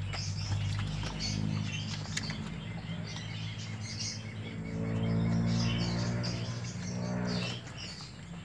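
Nursing puppies squeaking in short, high chirps. A low steady hum runs underneath, loudest in the middle and dropping away near the end.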